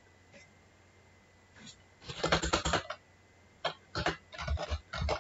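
Typing on a computer keyboard: quiet for the first two seconds, then a fast run of keystrokes, and after a brief pause more short runs of keystrokes.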